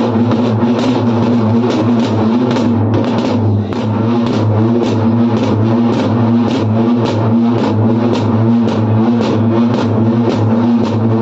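Drums beaten with sticks in a steady rhythm of evenly spaced strokes, over a steady low hum.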